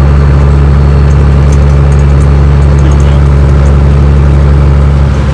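Kenworth W900 truck's diesel engine droning steadily at highway cruise, heard from inside the cab along with road noise.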